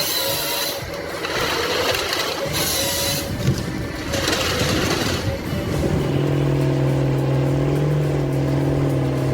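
Heavy machine noise: surges of rushing noise for the first half, then an engine running steadily at one pitch from about six seconds in.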